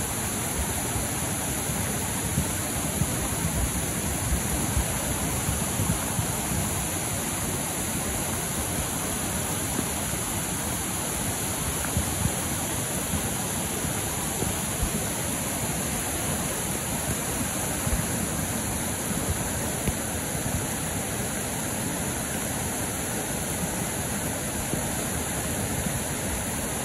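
Swollen, flooded creek rushing steadily, its fast floodwater churning over rocks in one continuous rush.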